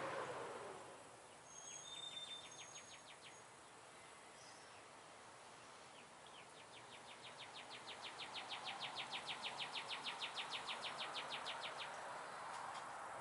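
An animal's pulsed trill, a rapid even run of about six clicking notes a second. It sounds briefly about two seconds in, then runs again for about five seconds from the middle, growing louder and stopping abruptly.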